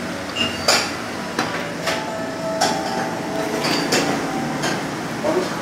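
Irregular sharp knocks and clinks of dishes and utensils, about seven in all, one ringing on briefly near the middle, over a steady background din.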